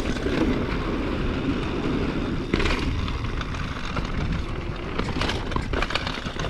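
Downhill mountain bike running fast over rough trail: a steady rumble of tyres and rushing air on the camera microphone, broken by sharp clatters of the bike over bumps, the loudest about two and a half seconds in and two more near the end.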